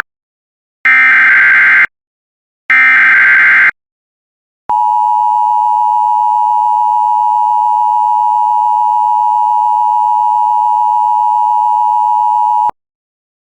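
Emergency Alert System broadcast signalling: two SAME header data bursts, each about a second of rapid digital tones, then after a short gap the EAS attention signal, a steady two-tone alarm held for about eight seconds that cuts off abruptly. It opens a National Weather Service tornado warning.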